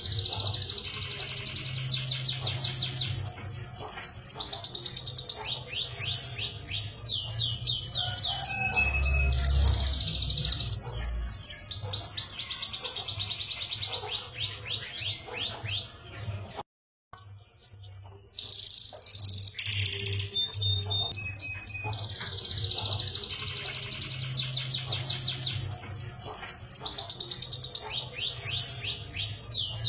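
Canary singing a long, vigorous song of fast trills and rolls, mixed with short sweeping notes and a few held whistles. The song cuts out for an instant about halfway through, then carries on. A low hum runs underneath.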